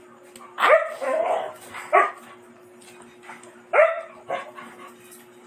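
A dog barking: three sharp, loud barks within about three seconds, each with a quick upward yelp in pitch.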